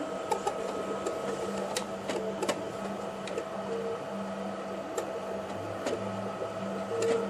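A small motorized device running with a steady hum and irregular clicks and rattles, a noise the owner puts down to the device being loose on its base.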